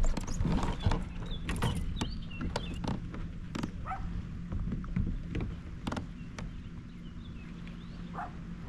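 Knocks and clatter of someone shifting about and handling gear in a plastic fishing kayak, over a steady low rumble. The knocks thin out after about six seconds.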